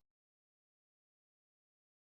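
Complete digital silence: the soundtrack drops out entirely, with no room tone or background noise.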